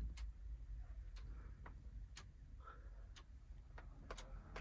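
Faint regular ticking, a sharp click about every half second.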